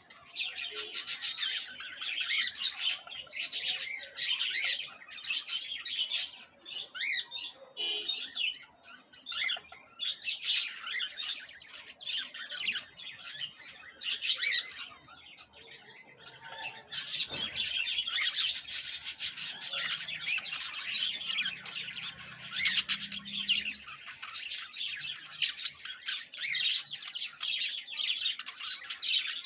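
A flock of caged budgerigars chattering and warbling continuously, a dense scratchy twittering with brief lulls.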